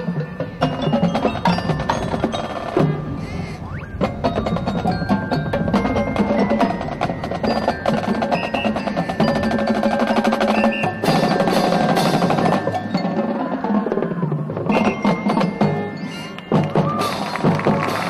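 High school marching band playing its field show, with mallet percussion such as bells and marimba prominent over drums and held wind notes.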